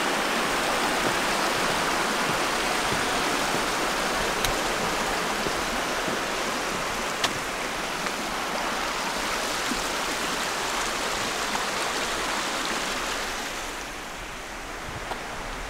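Rushing creek water, a steady hiss that eases off a little near the end.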